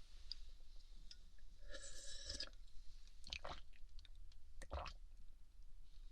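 Close-miked binaural sipping and swallowing from a cup of honey water: a few soft gulps and wet mouth clicks, with a fuller slurp about two seconds in.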